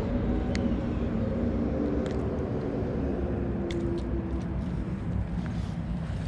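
A steady low motor drone whose pitch drifts slowly, with a few faint clicks.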